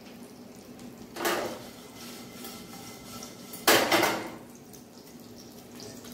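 Metal cooking pots and utensils clattering twice: a clink about a second in and a louder metal-on-metal clank about three and a half seconds in, each ringing briefly, over a faint steady hiss.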